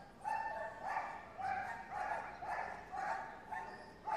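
Young police dogs barking over and over, about two short barks a second, during bite-pillow play training.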